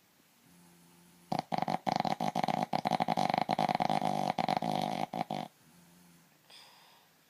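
A sleeper snoring: one loud, rapidly fluttering rattle lasting about four seconds, set between fainter, softer breaths before and after it.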